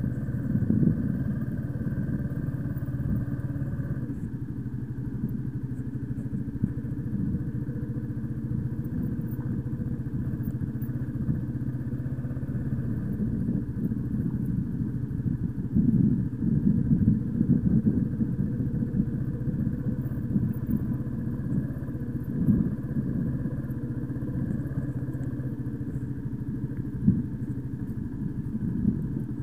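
A 125cc motorcycle's engine running steadily as the bike is ridden. Its note changes about four seconds in, and it is a little louder for a few seconds around the middle.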